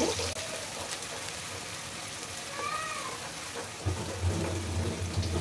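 Sliced onions sizzling in hot oil in an aluminium wok, stirred with a wooden spatula. About halfway through comes a short high tone that rises and falls, and a low hum starts near the end.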